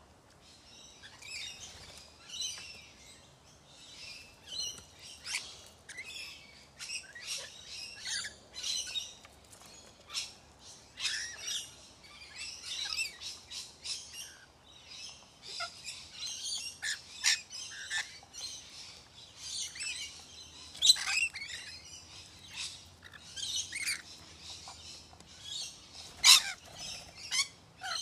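Rainbow lorikeets chattering and screeching: a near-continuous stream of short, high-pitched calls, with a couple of louder shrieks in the second half.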